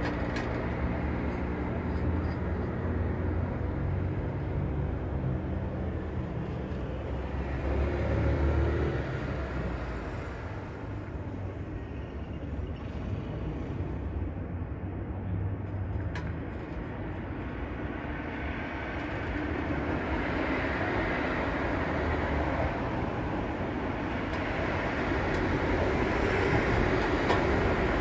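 Motor vehicle noise: a steady low engine hum for the first several seconds, then a broader rush of traffic that grows louder toward the end.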